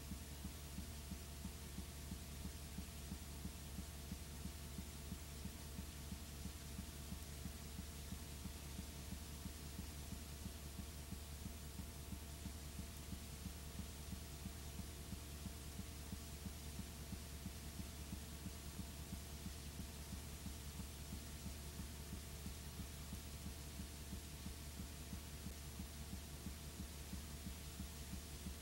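Steady low electrical hum with a fast buzzing pulse and an even hiss, and no programme sound: the noise floor of blank videotape playback.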